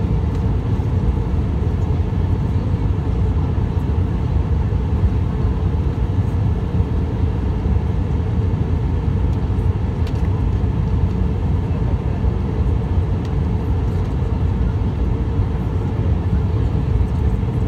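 Steady cabin noise of an Airbus A319 airliner in flight, heard inside the cabin by a window over the wing: an even, low rumble of the jet engines and rushing air.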